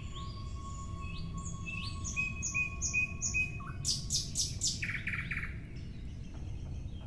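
Birds chirping: a series of short repeated chirps from about two seconds in, then a quick run of high notes about four seconds in, over a steady low background noise.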